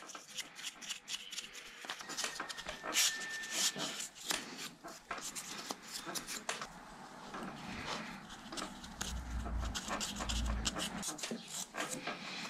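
Hands cleaning a Citroën 2CV 425 cc engine: a rag rubbing and scrubbing over the engine casing, with many small clicks and scrapes of metal. There are a few dull, heavier low knocks about nine to ten seconds in.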